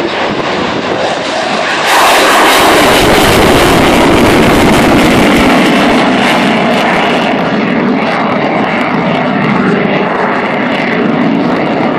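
Fighter jet making a display pass. Its engine noise jumps sharply to full loudness about two seconds in, then fades slowly as the jet climbs away.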